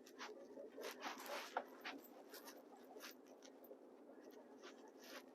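Faint scratching and rustling with a scatter of light clicks, busiest a little after a second in.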